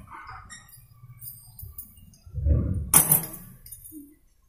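Metal clutch plates of a Bajaj Discover 100 knocking and clinking as they are pulled off the clutch hub by hand: a dull knock about two and a half seconds in, then a bright metallic clink with a short ring.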